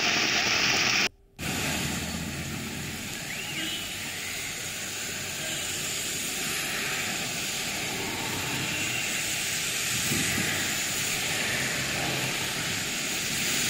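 Heavy rain pouring down, with vehicles passing on wet, flooded roads, heard as a steady hiss. A brief drop-out about a second in breaks it.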